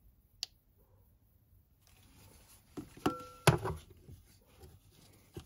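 Handling noise from an inspection camera's cable being fed into a car's petrol line: a single click, then a cluster of clicks and knocks about three seconds in, the loudest a sharp knock about three and a half seconds in, with a brief steady tone just before it.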